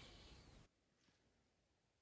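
Near silence: faint outdoor background hiss that cuts off to dead silence about two-thirds of a second in.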